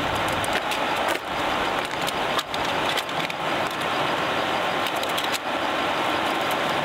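Wood campfire burning close by: a steady hiss with irregular crackles and sharp pops.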